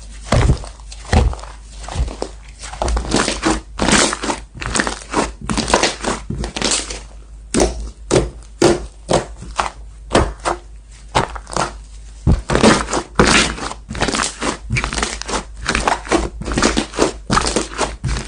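Slime being squeezed and pressed by hand: a steady run of short, wet squishes, about two or three a second, some louder than others.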